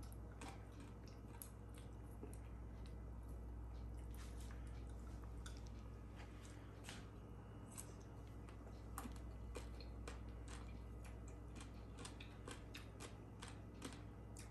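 Faint eating sounds: chewing, with many small scattered clicks, over a steady low hum.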